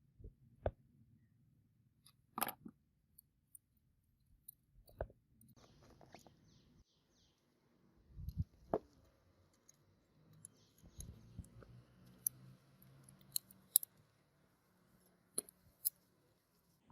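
Handling noises: scattered sharp clicks and knocks, with a short run of quick scraping strokes about six seconds in and low rustling between.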